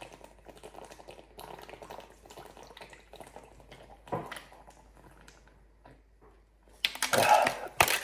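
Light, irregular clicking and tapping of small objects being handled, then a louder clatter about seven seconds in.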